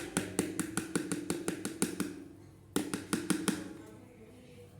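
A spoon tapping quickly against a bowl while slime glue is being mixed, about seven clicks a second. A first run stops about two seconds in, and a shorter run comes shortly before the three-second mark.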